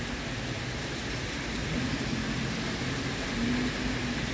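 Steady rain falling on wet asphalt, an even hiss.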